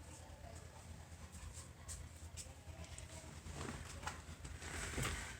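Faint rubbing and rustling of hands working over hair and skin, with a few soft clicks, swelling louder about three and a half seconds in: a scalp and neck massage.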